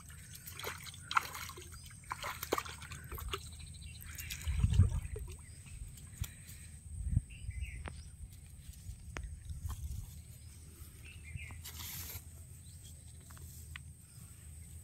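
A hooked fish splashing and sloshing in shallow pond water as it is pulled in on a pole and line, with scattered clicks and two dull thumps about five and seven seconds in.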